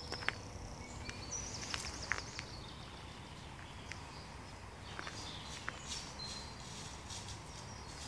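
Several songbirds calling and singing in woodland, with short high chirps and a trill, over a steady low rumble. A few sharp clicks stand out, loudest near the start and about two seconds in.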